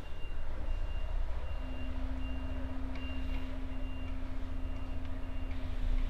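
Truck's reversing alarm beeping at an even rate, a bit faster than once a second, over the low running of the truck engine as it backs up. A steady hum joins in about a second and a half in.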